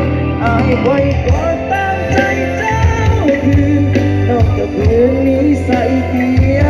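Thai song played loud through a rot hae sound truck's PA system: heavy bass under a gliding lead melody.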